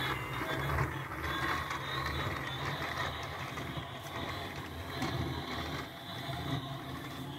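Battery-powered toy train running on its plastic track: a steady small-motor whir with a light rattle and faint ticking.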